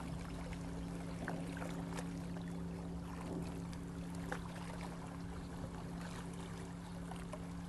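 Sea water splashing and lapping, with small irregular clicks and drips, over a steady low hum from a boat's engine.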